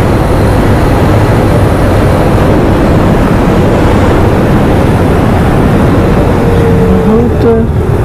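Steady wind rush over the microphone of a motorcycle cruising at road speed, with the engine running under it.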